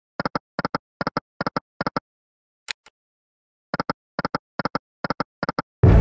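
Volcano Wealth slot game sound effects: short double clicks, about one pair every 0.4 s, as the reels stop one after another, a brief hiss about halfway through, then a second run of reel-stop clicks. Near the end comes a sudden loud sound with a deep rumble as the volcano wild expands over a reel.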